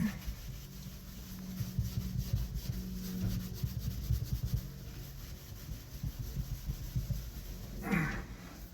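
A cloth rubbing wax cleaner over a surface inside a truck cab, in quick repeated strokes.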